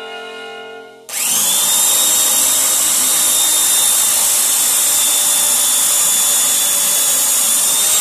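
A handheld power drill starts about a second in, its whine rising as the motor spins up, then runs steadily at full speed.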